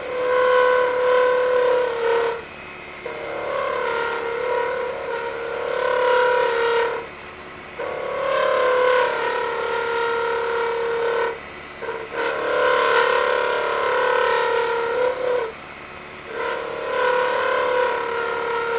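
Skew chisel making planing cuts along a thin spinning wooden spindle on a wood lathe. The cut gives a steady pitched hum as the slender workpiece vibrates under the tool, and it breaks off four times as the chisel is lifted between passes.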